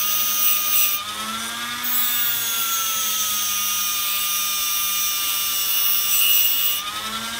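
High-speed rotary tool whining with a plastic abrasive bristle disc, polishing a copper pipe fitting with a steady hiss. The disc comes off the metal about a second in and again near the end; the hiss stops and the motor pitch rises as it runs free, then falls as it bears on the copper again.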